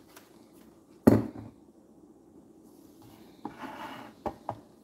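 Handling sounds of a serving plate on a wooden board: one sharp knock about a second in, then a short rustle and two light clicks near the end.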